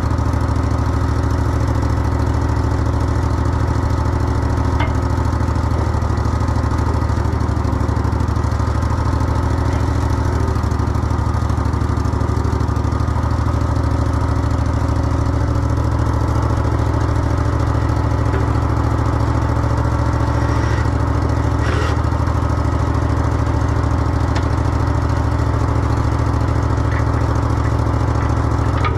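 Old skid steer's engine running at a steady idle, with a couple of faint knocks over it.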